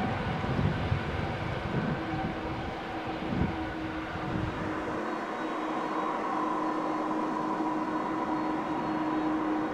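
Airbus A300-600 jet engines running at low power as the airliner taxis: a steady whine over a low rumble, the rumble dropping away about halfway through.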